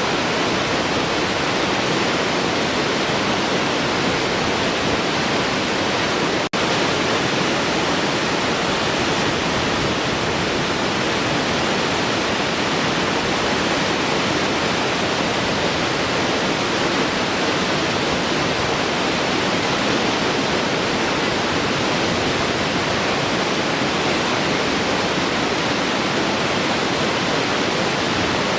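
Large waterfall flowing, a steady, full rush of falling water. The sound drops out for a split second about six and a half seconds in.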